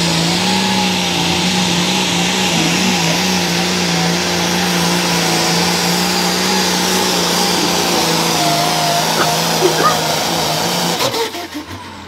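International Harvester 5488 hot farm pulling tractor's diesel engine running hard at a steady pitch under load while pulling the sled. It cuts out about eleven seconds in.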